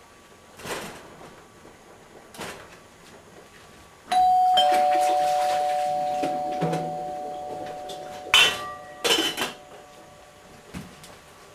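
Two-tone doorbell chime: a 'ding-dong' about four seconds in, the higher note then the lower one ringing out and slowly fading. Its meaning is that someone is at the door. A few sharp clatters of kitchen things being handled come near the end.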